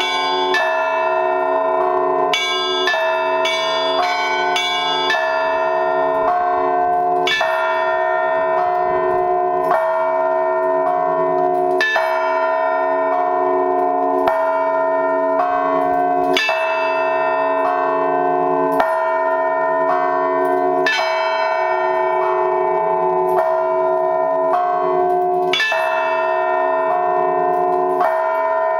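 Orthodox church bells rung by hand in a weekday peal, the large announcing bells and smaller middle bells struck in turn and ringing on over each other. Quick strikes about twice a second in the first few seconds give way to a heavier stroke every two seconds or so, with lighter bells sounding between.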